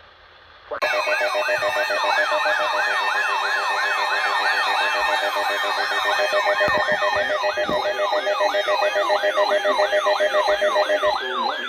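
Electronic yelp siren sounding in fast, repeated falling sweeps, about two and a half a second, starting about a second in and stopping just before the end.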